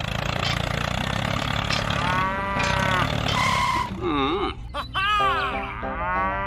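A small engine running with a steady noise, overlaid about two seconds in by a cow-like mooing call. After about four seconds the engine noise stops and music plays with more animal calls.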